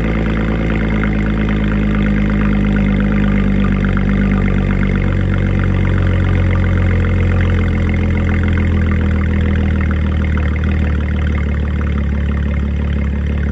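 Audi S4's supercharged 3.0 V6 idling steadily through an Armytrix aftermarket exhaust after a cold start, a deep, even drone from the quad tailpipes. Its low note shifts slightly about five seconds in.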